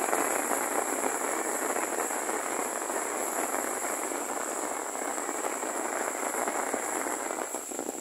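Rain falling steadily, a dense crackling patter that eases a little near the end.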